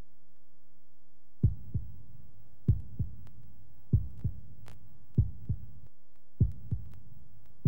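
Heartbeat sound effect: slow paired low thumps, a beat and a softer echo beat, repeating about every one and a quarter seconds from about a second and a half in, over a steady low hum.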